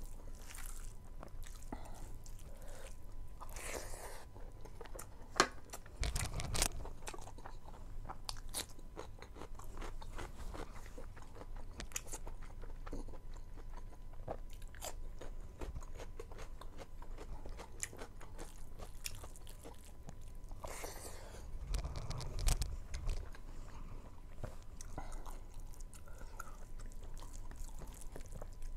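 A person eating by hand: chewing and crunching, with many small clicks. There is one sharp click about five seconds in, and dull low bumps around six and again around twenty-two seconds in.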